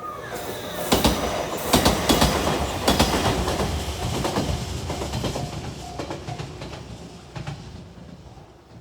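JR Kashii Line local train passing close by, its wheels clacking sharply over the rail joints. It is loudest in the first few seconds and fades away near the end.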